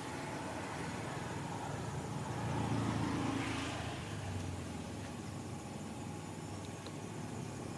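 A vehicle passing on a nearby road over steady outdoor background noise, growing louder about three seconds in and then fading away.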